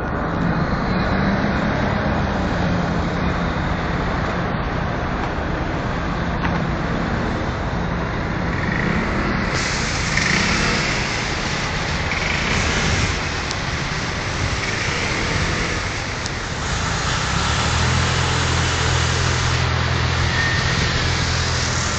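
Vehicles of an oversized-load convoy, escort vans and the boat transporter, driving slowly past on a city street: engine hum over tyre and traffic noise. A steady low engine drone grows stronger about three-quarters of the way through.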